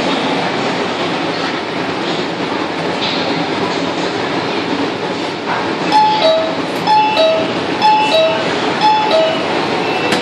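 Shenzhen Metro Line 5 train (early CSR Zhuzhou-built stock) running into the platform and slowing to a stop. About six seconds in, a two-tone door chime, high note then low note, sounds four times, about once a second, as the doors are about to open.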